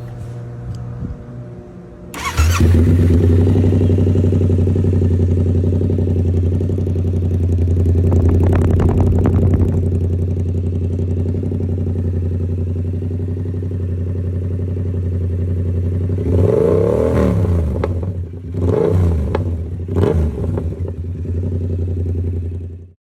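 2022 Yamaha YZF-R7's 689 cc parallel-twin engine, fitted with an aftermarket exhaust, cold-starting about two seconds in and settling into a steady idle. Near the end it is blipped three times, the revs rising and falling back each time.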